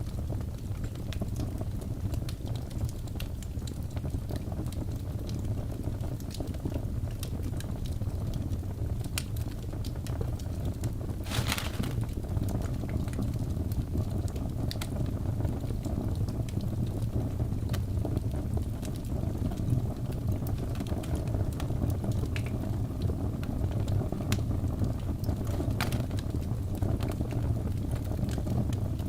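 Wood fire burning in a fireplace: a steady low rumble with scattered crackles and pops, one louder pop about eleven seconds in.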